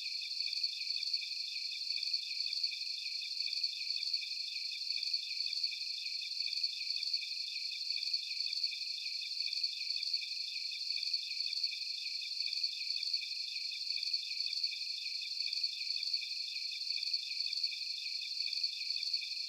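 Crickets chirping steadily in a chorus: several overlapping, rapidly pulsing trills at different pitches, with nothing deep underneath.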